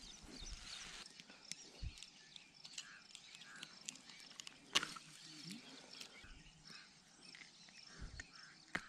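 Sharp metallic clicks from a fish lip gripper and pliers as a hook is worked out of a small snakehead's mouth. The loudest click comes about five seconds in and another just before the end, over a faint background of small animal calls.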